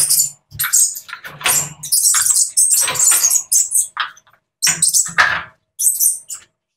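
Irregular rattling and clatter of plastic water cups and the wire fittings of bird cages as the drinkers are pulled out of the cages, in short bursts with brief pauses between.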